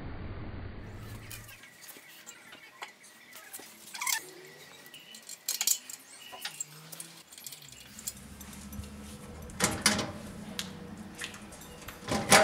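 Scattered metallic clinks and taps of steel fittings being handled and fitted on a car disc-brake hub, with two sharper clanks near the end.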